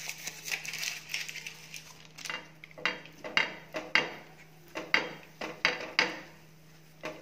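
Wrapped block of butter rubbed back and forth over a hot dosa tawa, scraping and knocking against the pan in short strokes about two a second from a couple of seconds in.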